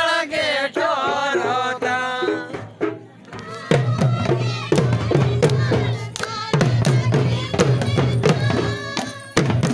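A group of men singing a Karma folk song without accompaniment. About four seconds in, a large double-headed barrel drum comes in with strong, regularly repeated beats under the singing.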